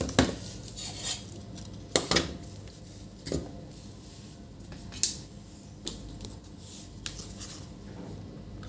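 Scattered light clicks and metallic taps of multimeter probes and small tools handled against a circuit board, about half a dozen over several seconds, while diodes are tested for a short.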